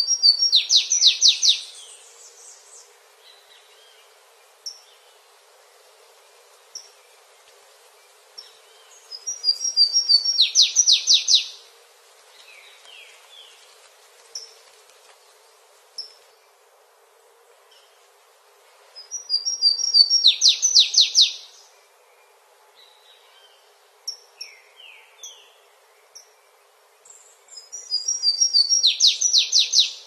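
A small songbird singing a short, loud phrase four times, about every nine seconds: a few high thin notes running straight into a quick trill. Soft single notes and chips come in between.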